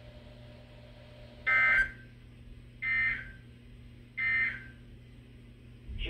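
A NOAA weather radio's speaker sounds the three short, buzzy EAS end-of-message data bursts, about 1.3 seconds apart, marking the end of the alert broadcast.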